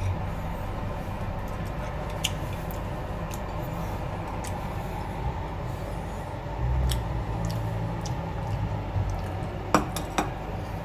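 A metal fork clinking and scraping on a plate while picking at a cooked fish: a few scattered clinks, the sharpest two close together near the end, over a steady low background hum.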